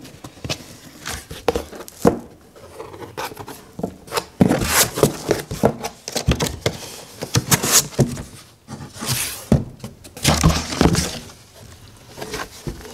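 Cardboard shipping box being cut open with scissors and its flaps pulled back, making irregular scraping, tearing and rustling of cardboard with small clicks.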